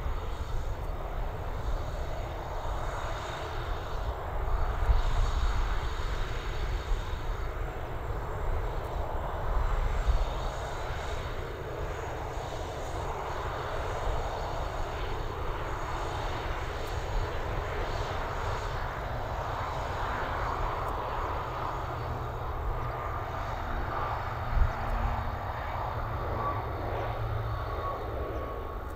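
The twin Pratt & Whitney Canada PW120 turboprop engines and propellers of an ATR 42-300 run at takeoff power as the airliner rolls down the runway and lifts off. It is a steady engine and propeller noise over a low rumble, with a faint whine in the last several seconds.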